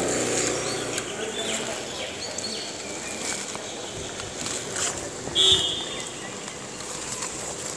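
Street background noise with passing traffic around a crowd of stray dogs. A short, sharp, high-pitched yelp from one of the dogs stands out about five and a half seconds in.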